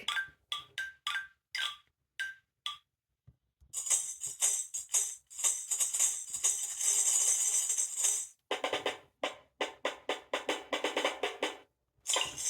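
Recorded percussion from a children's sound-book's buttons: a few short tapped notes, then a tambourine jingling steadily for about four seconds, then quick rattling shakes.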